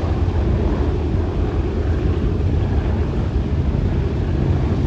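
The Wright R-1820 Cyclone nine-cylinder radial engines of a B-17G Flying Fortress run at low taxi power. They make a steady, deep drone that does not rise or fall.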